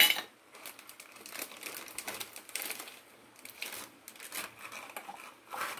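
Faint crinkling and rustling of a plastic spice packet being handled as masala is added to the bowl, with a sharp click at the start, scattered light ticks, and a louder rustle near the end.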